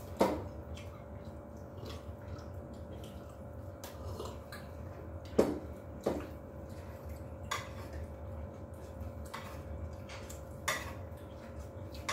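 Plates and utensils clinking at a dining table during a meal: about six sharp clinks and taps spaced a second or two apart, the loudest about five and a half seconds in, over a faint steady hum.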